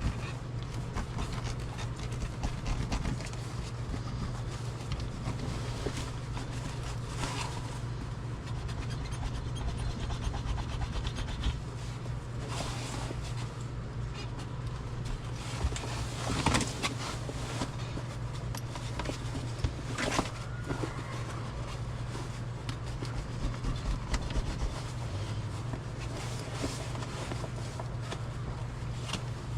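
Hands handling and rubbing the drysuit's neck material as it is pressed into place, with scattered rustles and a few sharp clicks, the clearest two about halfway through, over a steady low hum.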